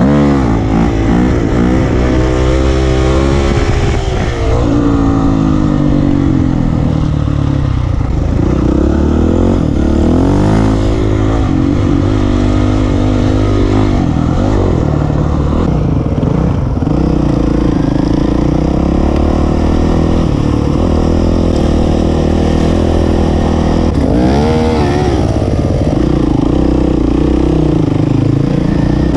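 Honda CRF250X single-cylinder four-stroke dirt bike engine running under way, its pitch rising and falling over and over as the throttle opens and closes and gears change.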